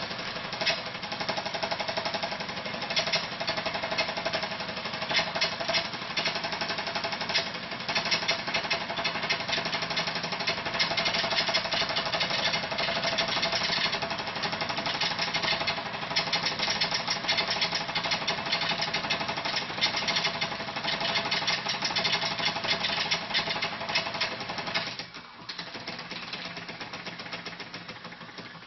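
Wilesco D16 toy steam engine running fast, with a rapid, even mechanical clatter over a steady hum. Near the end the sound drops sharply and goes on much quieter.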